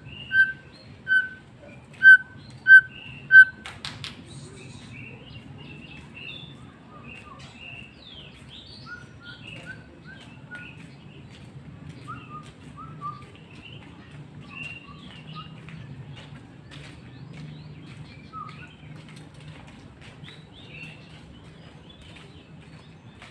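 White-rumped shama (murai batu) singing. It gives a run of about six loud, evenly repeated whistled notes in the first few seconds, then a sharp click about four seconds in, then softer, varied chirps and short whistled phrases over a steady low hum.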